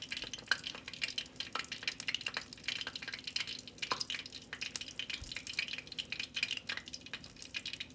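Wonton-wrapped parcels frying in hot oil in a pan: irregular crackling and popping, with a faint steady hum underneath.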